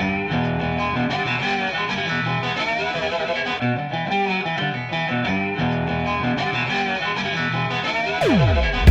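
Background music led by guitar, with distorted electric guitar tones; a falling pitch glide near the end.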